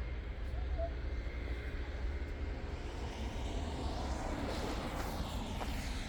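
City traffic: a steady low engine rumble, with a passing vehicle's rush swelling in the second half.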